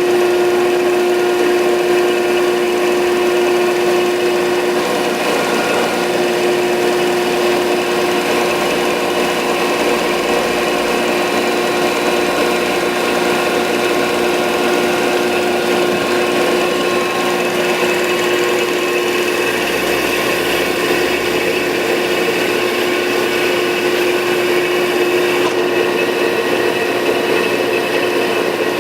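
Landis 1R universal cylindrical grinder running under power: a steady machine hum and whine made of several constant tones, with no change in speed.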